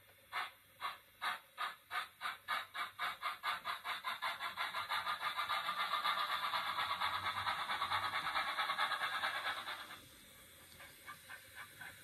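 Steam exhaust chuffs from the Rapido Trains Hunslet 16" 0-6-0 saddle tank model's DCC sound decoder, played through its on-board speaker. The beat starts at about two chuffs a second and quickens until the chuffs run together. About ten seconds in it drops abruptly to a quieter, lighter beat.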